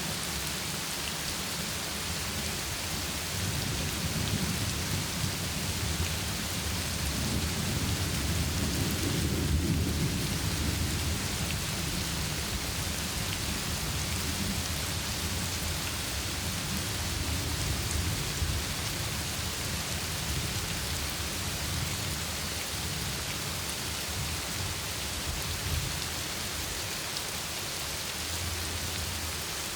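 Heavy rain falling steadily, with rolling thunder rumbling low beneath it, swelling loudest about ten seconds in and again briefly near the end.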